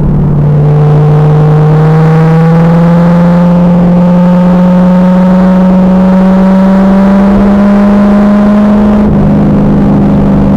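2000 Pontiac Trans Am Firehawk's V8 pulling hard under load. The note climbs slowly and steadily for about nine seconds, then steps down in pitch, as at a gear change or a lift. It is loud and distorted on the recording.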